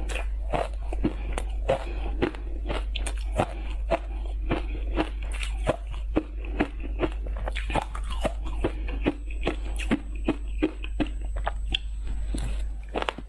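A person biting and chewing ice dusted with matcha powder: an unbroken run of sharp, crisp crunches, several a second.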